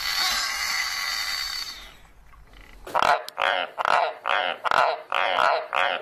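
A horned frog (Pacman frog) screams with its mouth wide open, a harsh, noisy cry lasting about two seconds. About three seconds in, White's tree frogs start calling, a run of short croaks at about two per second.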